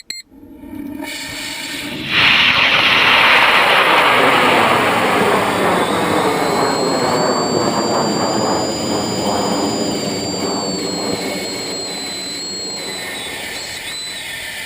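High-power rocket's N-class research motor igniting at liftoff, with a few short beeps at the very start. A dense roar that jumps up sharply about two seconds in, then slowly fades as the rocket climbs away.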